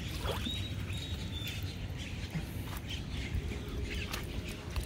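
Faint bird chirps and a short thin whistle over a low steady rumble, with a few light knocks.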